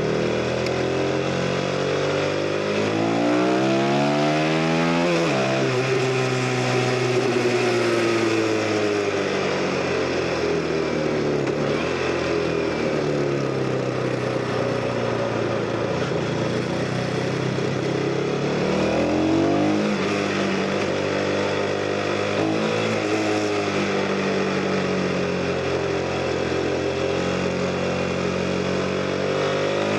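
CFMoto 250NK's single-cylinder engine riding under way: the revs climb for a few seconds and drop sharply at a gear change about five seconds in, then ease down slowly. The revs rise and drop again around twenty seconds in and start climbing once more near the end.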